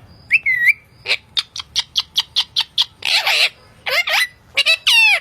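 Indian ringneck parrot calling: a short pitched call, then a quick run of short chirps at about five a second, a harsh squawk, and several calls that fall in pitch.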